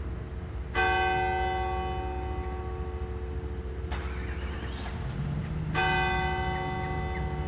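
Church bell of the Basilica of Notre-Dame de Bon-Secours tolling slowly after a funeral: two strikes about five seconds apart, each ringing on and fading slowly.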